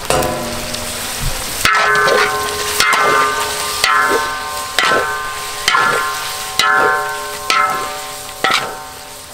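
Chopped raw chicken tipped into hot oil in a wok, sizzling, then stirred with a spatula. The stirring comes as a scraping stroke with a ringing clang against the wok about once a second.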